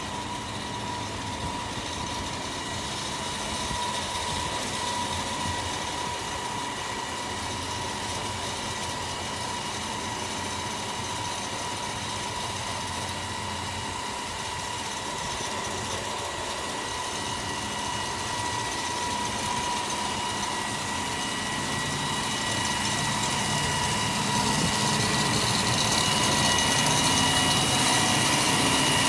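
CNC diamond wire stone saw running while cutting a stone block: a steady machine whine over a constant noise, growing louder near the end.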